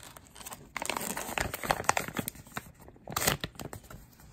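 Clear plastic tool bag crinkling and crackling as hands handle and open it, the crackles thickening from about a second in.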